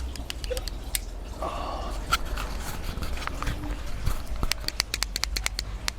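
Fidget Cube being fiddled with: scattered single clicks, then from about four and a half seconds in a fast run of small clicks, several a second.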